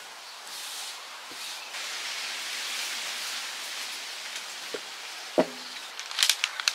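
Hands brushing and smoothing fabric on a cutting table, a steady soft rustling hiss. A single sharp knock on the table about five seconds in, then a burst of crisp crinkling rustles near the end as a light piece is picked up.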